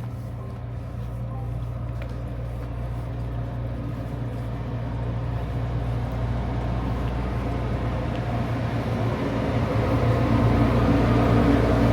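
Boat engine running steadily with a low hum and water noise, growing gradually louder.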